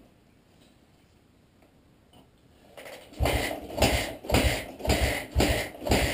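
Suzuki DR-Z125 four-stroke single being kickstarted, a quick run of about six kicks about half a second apart after a pause of a few seconds. The engine turns over without catching.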